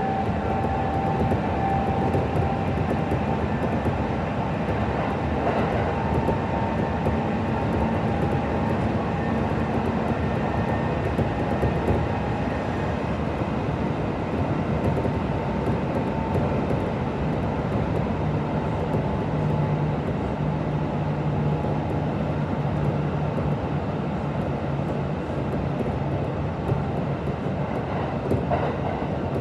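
Kintetsu 1026 series electric train heard from inside the car while running: steady wheel and rail noise with steady whining tones from its VVVF inverter and traction motors. A low tone joins about halfway through.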